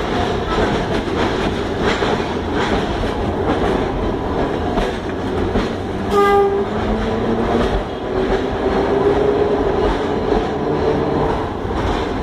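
Heliopolis tram running along the track, heard from inside the driver's cab: a steady rumble and rattle of the car and its wheels on the rails, with a motor whine that rises and falls. About six seconds in, a short horn note sounds.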